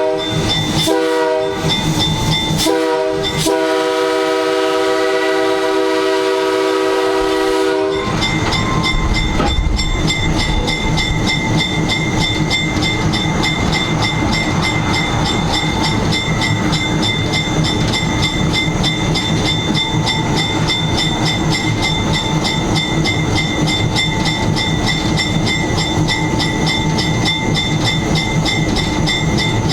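A GE 80-ton switcher's Nathan K3H air horn sounding a crossing sequence: several blasts with short breaks, the last held until it stops about eight seconds in. After that, the locomotive running along the track with a steady rhythmic clatter from the wheels.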